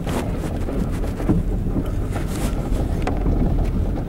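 Inside a car driving over a rough, potholed street: a steady low rumble of engine and tyres, with a few knocks from the suspension over the bumps. The driver puts the jolting down to worn control arms.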